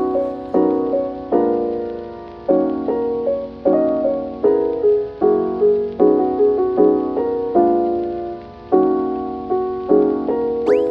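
Background piano music: a calm run of single notes and chords, each struck and left to die away, about one or two a second.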